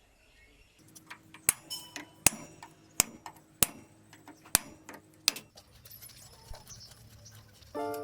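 Metal tools tapping and clinking on metal parts: about six sharp, ringing knocks roughly a second apart, with lighter clicks between. Music starts near the end.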